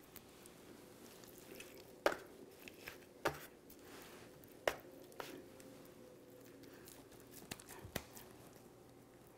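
Hands pushing garlic slivers into a raw leg of lamb in a metal sheet pan: quiet handling of the meat, with five or six sharp clicks and taps spread through it.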